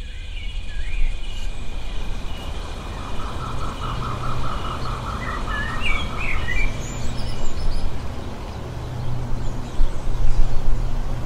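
Outdoor birds chirping and calling, with a rapid repeated trill from about three seconds in to about six and a half seconds. A steady low rumble lies beneath.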